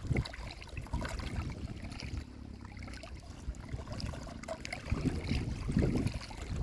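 Wind buffeting the microphone in uneven gusts over running river water, with faint scattered ticks.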